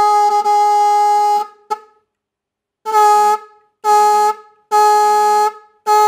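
12-volt low-pitch disc car horn sounding a steady tone in blasts as power is touched to its terminals, its adjusting screw set for maximum sound. One blast of about a second and a half, a brief blip, then three shorter blasts, with another starting near the end.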